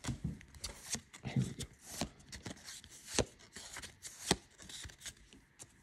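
Pokémon trading cards from a freshly opened booster pack handled in the hand, the stack squared up and cards slid against one another. It gives a series of short, soft slaps and rustles, the sharpest about three seconds in and again about four seconds in.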